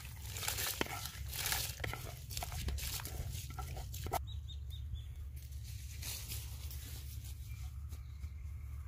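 Dry rice grains poured into a pot of boiling water, the grains pattering and hissing into the bubbling water for about four seconds. Then it cuts to quieter open-air background with a steady low hum and a few short high chirps.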